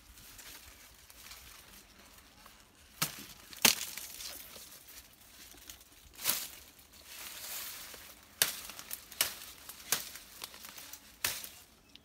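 Sugarcane stalks being cut with a knife: a series of sharp cracks, the loudest about three and a half seconds in, amid the crackling rustle of dry cane leaves.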